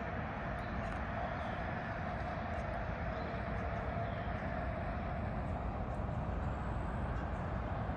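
Steady city hum of distant road traffic: an even, unbroken rumble with no single vehicle standing out.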